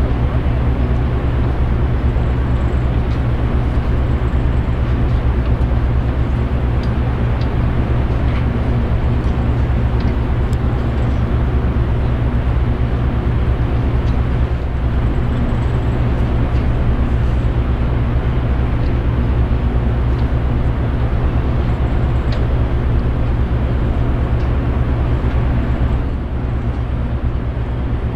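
Ferry underway: the steady low drone of the ship's engines and machinery over a constant rushing noise, dipping slightly near the end.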